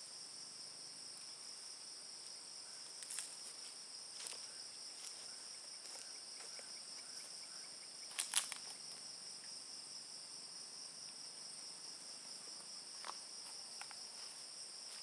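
Steady insect chorus, a continuous high-pitched chirring in two pitches. A few short rustles or knocks break in now and then, the loudest a double knock about eight seconds in.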